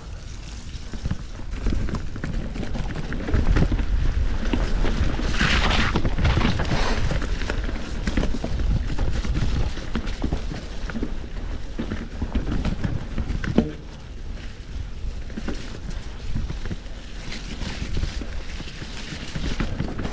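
Polygon D6 mountain bike ridden over a dirt trail: wind buffeting the microphone over the tyres rolling on the ground, with frequent clicks and rattles from the bike over bumps. A brief hissy scrape comes about five seconds in, and a single sharp knock a little past halfway.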